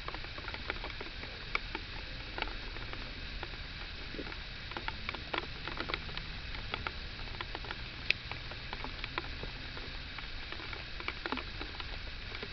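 Rain falling steadily, with irregular ticks of drops striking close by.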